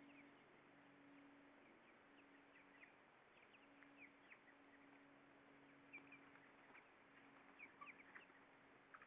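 Faint, scattered short bird chirps and peeps, each a quick downward sweep, coming from the flock, over a low steady hum.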